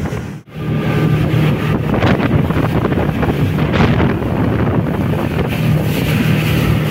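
Speedboat under way: its engine runs with a steady low hum beneath heavy wind buffeting on the microphone and water rushing past the hull. The sound drops out briefly about half a second in, then carries on unchanged.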